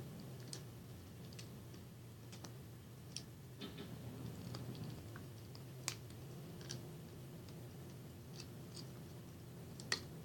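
Dogs gnawing on bones: irregular sharp clicks and cracks of teeth on bone, the sharpest about six seconds in and again just before the end, over a low steady hum.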